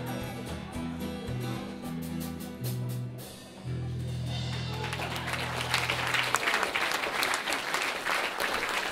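Live band with acoustic guitar and drums playing the closing bars of a song and ending on one long held final chord. Audience applause starts about halfway through and grows louder as the chord dies away.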